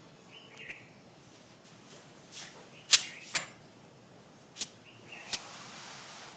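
A few short, sharp clicks and knocks, the loudest about three seconds in, then a cloth duster rubbing across a chalkboard near the end.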